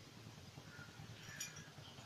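Cooking oil being poured from a steel bowl into an empty kadhai, a faint trickle with a light clink about one and a half seconds in, over a faint low hum.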